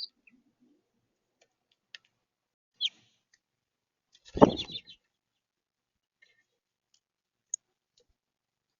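Birds at a bird feeder, heard through the feeder camera's microphone: a few short, high chirps and clicks, and about halfway through one loud half-second clatter at the feeder.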